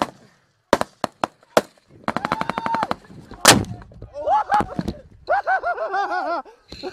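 Close rifle fire: a few single shots, then a rapid automatic burst about two seconds in and one louder shot about three and a half seconds in, followed by men shouting.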